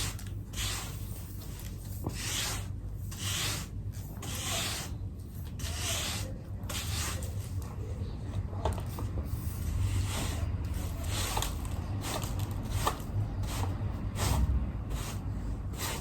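Irregular short rubbing or scratching strokes on a surface, about one or two a second, over a low steady hum.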